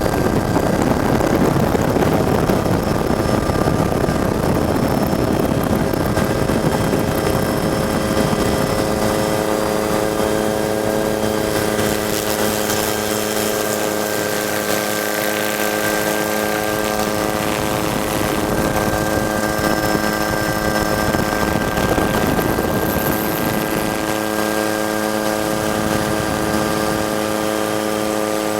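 Helicopter running steadily: a constant whine of several fixed tones over a rush of noise that is heavier for the first ten seconds or so.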